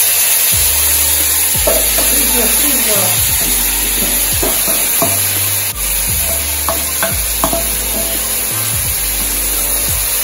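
Seasoned turkey neck pieces sizzling and frying as they land in hot oil with curry powder toasted in it; a steady, loud sizzle.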